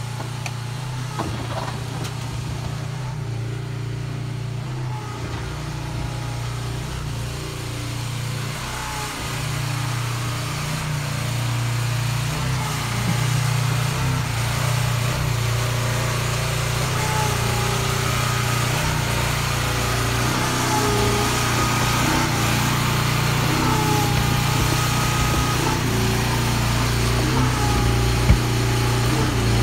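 Engine running steadily, powering the cable puller that draws the new HDPE sewer pipe through the ground; it grows louder and busier from about eight seconds in.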